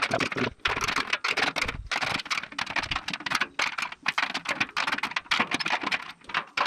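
Rapid metallic clicking of a ratchet spanner as nuts are run up on the bolts of a concrete mixer drum, several clicks a second with short breaks between bursts.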